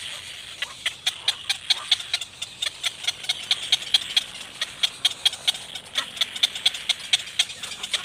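Cormorant chicks begging in the nest: a rapid, uneven run of short, sharp, high chirps, several a second.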